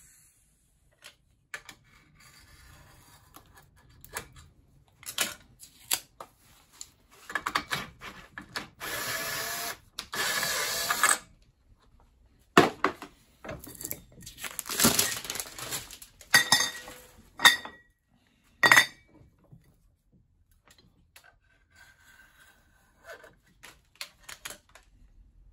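Hand work on aluminium cream charger flasks in a bench vise: a screwdriver scraping and clicking as it works the brass valve out, sharp metal knocks and clanks as the flasks are handled and clamped, and two stretches of loud steady rushing noise a few seconds long near the middle.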